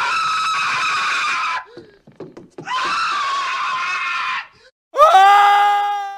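Three cartoon-character screams. The first two are long, harsh and raspy, with a short gap of small scattered sounds between them. The third, about five seconds in, is higher and clearer, held on one pitch and fading out.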